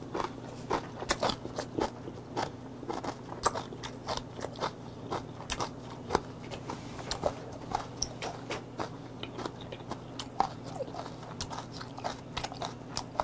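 A person chewing a mouthful of fermented skate (hongeo) with raw oyster close to a clip-on microphone: a steady run of sharp crunches and wet clicks as the skate's cartilage is bitten through.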